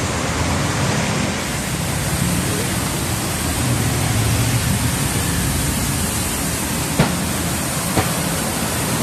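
High-pressure car-wash spray hissing steadily as the jet hits car bodies, with a low machine hum under it. Two short knocks sound near the end.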